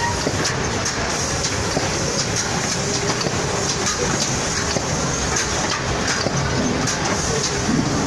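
Automatic cartoning machine running steadily, packing glazed curd-cheese bars one at a time into cardboard cartons: a continuous mechanical clatter from its chain conveyor and packing mechanisms, with sharp clicks about every second and a steady high hiss.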